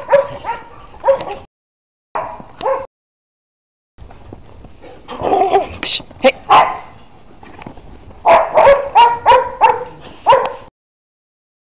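Dogs barking in quick runs of short, sharp barks. The sound cuts to dead silence abruptly a few times between runs.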